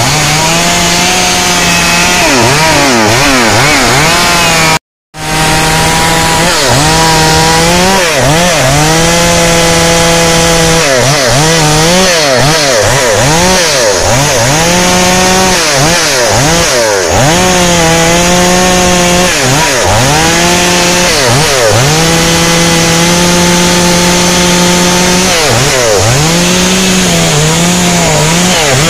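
Stihl MS 382 two-stroke chainsaw cutting lengthwise along a log, held at high revs under load for long stretches, its pitch sagging and swinging back up each time the bar is eased or repositioned. The sound cuts out completely for a moment about five seconds in.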